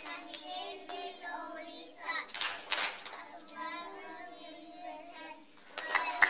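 Children's voices, close to the microphone, with a single sharp knock just before the end.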